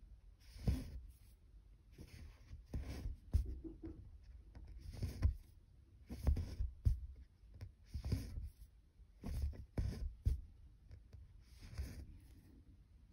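Cross-stitch needle and thread drawn through 25-count evenweave fabric while stitching. Each stitch makes a short rasping pull with a soft thud, about one a second.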